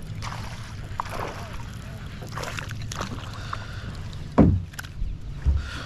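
Small fishing boat on the water: a steady low hum with light water splashes and knocks, and one louder thump about four and a half seconds in.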